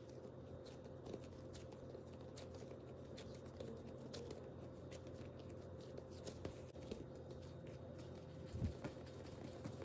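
Faint soft taps, pats and rubbing as hands press and round a piece of soft bread dough on a silicone baking mat, over a steady low hum. A soft thump comes near the end.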